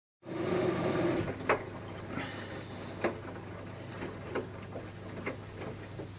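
Front-loading washing machine running a wash: a steady motor hum as the drum turns, with the clothes and water sloshing and knocking against the drum in short knocks about once a second.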